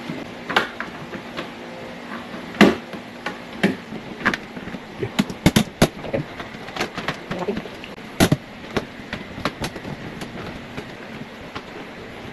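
Irregular sharp knocks and clicks of shoe rack parts being fitted and tapped together. There is a loud knock a little over two seconds in, a quick run of clicks in the middle, and another loud knock about eight seconds in.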